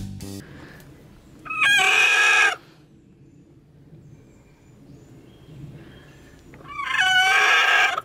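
Angry chicken screaming twice, each call about a second long and sliding sharply up in pitch at its start.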